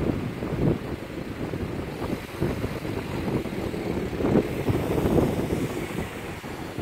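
City street traffic: a car driving past close by over an uneven low rumble of traffic, with wind buffeting the microphone.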